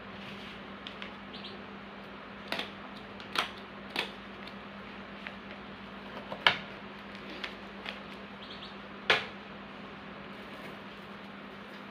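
Handling noise while packing: five sharp taps and clicks of small objects being set down or moved, with a few fainter ticks between them, over a steady low hum.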